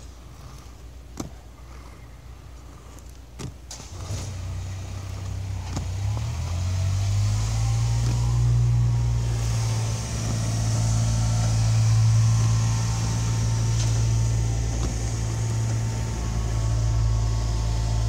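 A motor vehicle engine running steadily, a low even hum that comes in about four seconds in and grows louder over the next few seconds, then holds. A few sharp clicks sound before it comes in.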